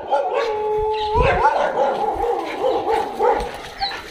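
A dog howling: one held note that slides upward about a second in, then shorter wavering howls and whines.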